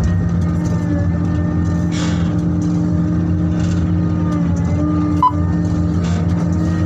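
Heavy diesel mining machinery running: a steady low engine drone with a thin whine above it. A single short knock comes about five seconds in.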